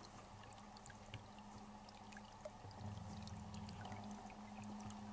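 A small stream trickling faintly under a crust of ice, with scattered tiny drips and clicks, over a low steady hum.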